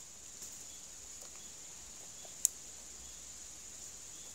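Steady high-pitched insect chorus from the woods, with one sharp click about two and a half seconds in, as the weaver handles the branches.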